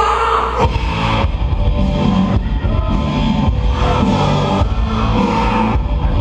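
Live rock band playing, with electric guitar and drum kit; the full band comes in hard about half a second in.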